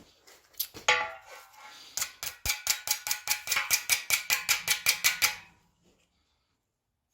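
Metal clanking: a single ringing clank, then a quick, even run of light ringing metal-on-metal taps, about five a second, that stops suddenly near the middle of the stretch.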